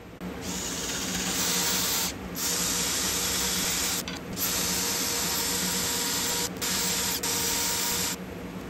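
Cordless drill spinning a steel vise-handle rod against an abrasive sponge, a steady rubbing hiss that drops out briefly several times and stops shortly before the end.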